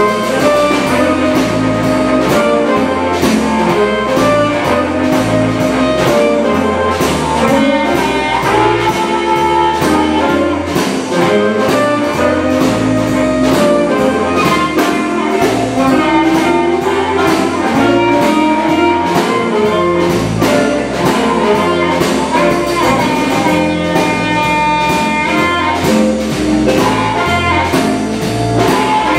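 Live electric blues band: a harmonica cupped against a hand-held microphone takes the lead over electric guitar, electric bass and a steady drum beat.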